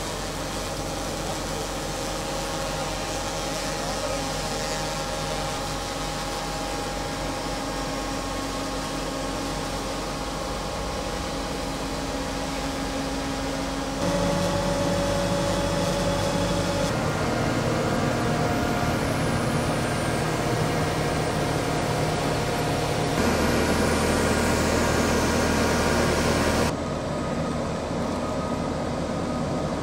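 Diesel engine and hydraulics of a large crane running steadily under load as counterweight ballast blocks are hoisted, a constant hum with several held tones. The pitch and loudness shift abruptly a few times.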